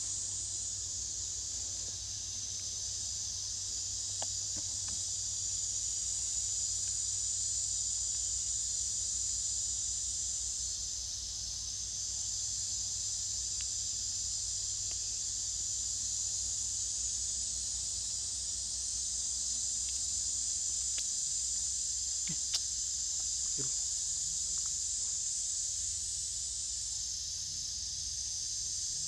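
A steady, high-pitched chorus of insects buzzing, easing slightly twice, with a few faint clicks.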